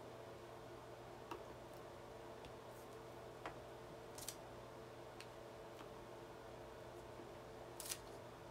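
Faint clicks and soft paper rustles from hands handling thin thermal-paper store receipts, a few scattered taps over a quiet room with a steady low hum.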